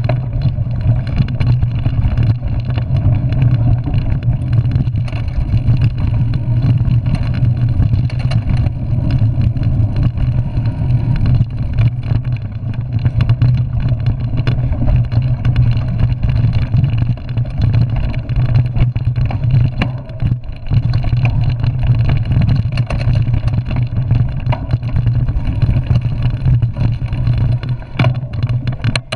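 Mountain bike ridden fast down a dirt forest trail, heard through a handlebar-mounted camera: a loud, steady rumble of tyres over the ground with constant rattling from the bike.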